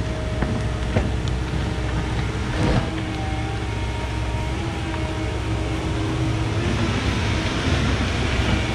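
Komatsu PC170LC excavator's diesel engine running steadily under load as the boom swings and lifts the bucket, with a couple of knocks in the first three seconds.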